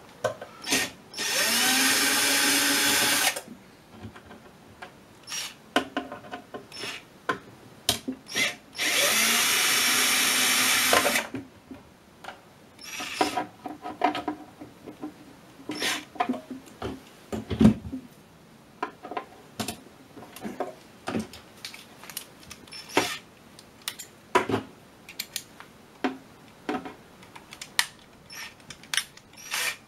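Cordless drill-driver backing screws out of an aluminium cover panel. The motor whirs up twice, for about two seconds each time, rising in pitch as it spins up. Many small clicks and taps follow.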